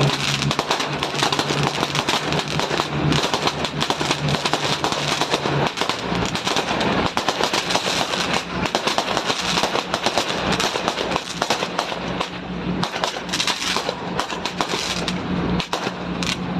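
A long string of firecrackers going off in rapid, continuous crackling volleys. A steady low hum sounds underneath and shifts slightly in pitch about six seconds in.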